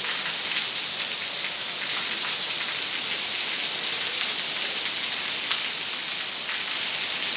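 Steady heavy rain from a tropical storm pouring onto the street and rooftops: a dense even hiss with scattered ticks of individual drops.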